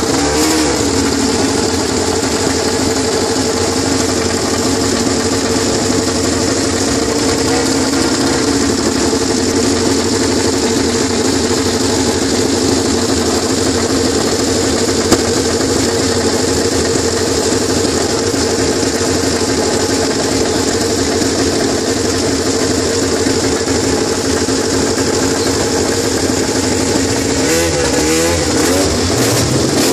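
Ducati Desmosedici MotoGP race bikes' V4 engines running steadily as they warm up, with throttle blips that rise and fall in pitch just after the start and again near the end.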